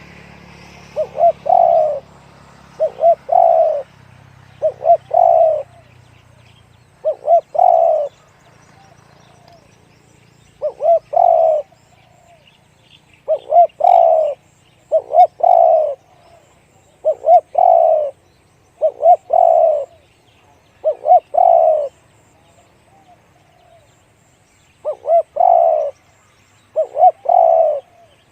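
A spotted dove cooing over and over, about a dozen calls at roughly two-second intervals. Each call is a couple of quick notes and then a longer, deeper coo.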